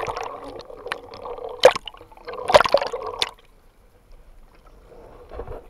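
Seawater sloshing and splashing against a camera held at the water's surface, with sharp splashes about one and a half and two and a half seconds in, then a quieter lapping after about three seconds.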